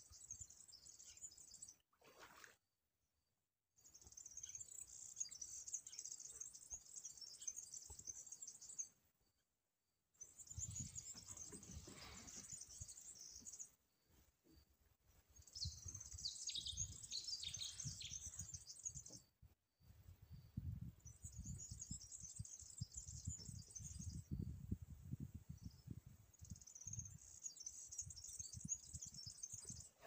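A flock of small birds chirping together in a dense, high-pitched chorus that breaks off into short silences several times, with a low rumble underneath in places.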